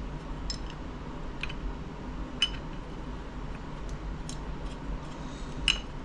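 Light metallic clinks of small steel hardware being handled: 9/16 bolts and lock washers being picked up, greased and set down. A handful of scattered clinks, the sharpest near the end.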